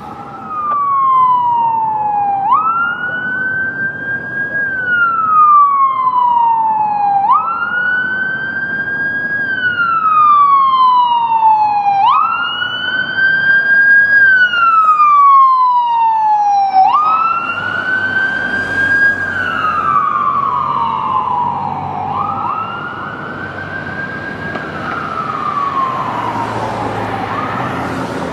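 Electronic siren on a responding fire department emergency vehicle, sounding a wail: each cycle jumps up in pitch, then slides slowly down, about once every five seconds, with the vehicle's engine running underneath.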